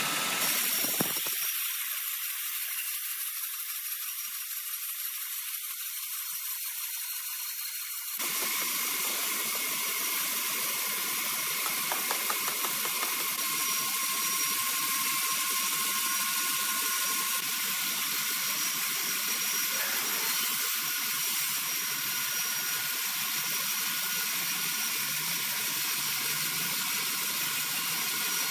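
Horizontal band sawmill running, its blade cutting through a green ironwood log: a steady high whir and hiss with a few thin steady tones. The sound is thin for the first several seconds and turns fuller abruptly about eight seconds in.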